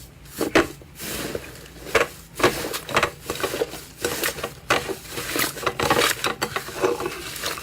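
Slime being squeezed and pressed by hand, giving an irregular run of sharp pops, clicks and crackles.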